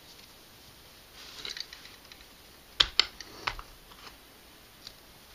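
Handling noises of an AR-15 lower receiver being repositioned and clamped in a bench vise: light rustling, then two sharp knocks close together about three seconds in, followed by a few lighter clicks.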